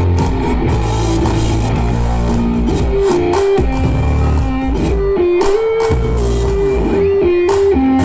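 Rock music led by guitar: a guitar melody of held notes stepping up and down over bass guitar.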